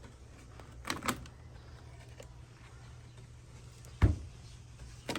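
Handling noises from an old wooden sewing-machine cabinet: a couple of light clicks, then one sharp loud knock about four seconds in, over a steady low hum.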